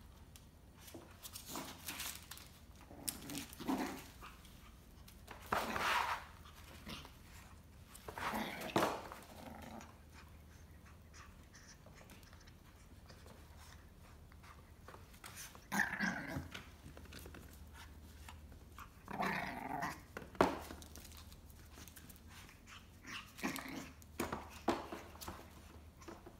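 Shih Tzu puppy growling in play in short spells, with scuffles and knocks in between as it tussles in a plastic tray.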